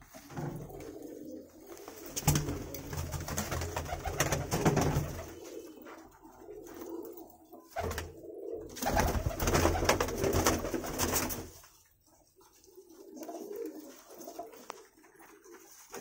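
Teddy and Kamager pigeons cooing in a small loft, with two longer stretches of louder rustling and low rumbling noise and a quieter spell of softer cooing near the end.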